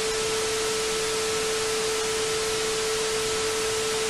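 A single steady electronic tone, mid-pitched, held at one level over loud even hiss like static, cutting off suddenly just past the end.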